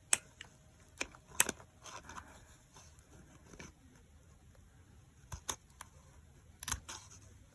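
Scissors snipping paper: a few separate sharp snips with pauses between them, two close together near the end.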